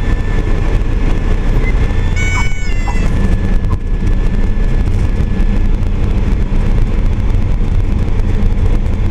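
Cessna 172's piston engine running at low power, heard from inside the cabin as the aircraft rolls along the runway after landing. A brief high-pitched squeal cuts in about two seconds in.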